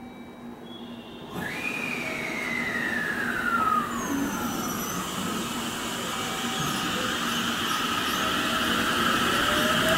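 JR West 289-series electric limited-express train pulling away from the platform. The noise jumps a little over a second in. An electric tone falls in pitch over the next few seconds, and near the end a motor whine rises as the train gathers speed.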